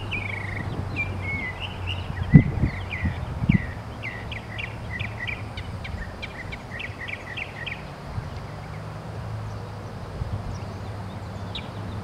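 A songbird singing a run of varied phrases: chirps and down-slurred notes, then a quick series of repeated sharp notes, falling silent about eight seconds in. A steady low outdoor hum runs underneath, with two low thumps in the first few seconds.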